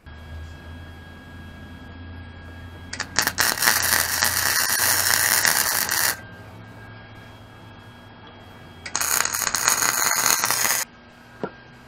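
Arc welding on steel tubing: the arc crackles and hisses in two runs, about three seconds and then about two seconds long, with a steady low hum between them and a single light tick near the end.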